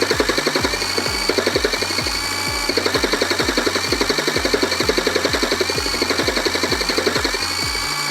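Upbeat background music with a steady beat of deep bass hits, about three a second, cutting off suddenly at the end.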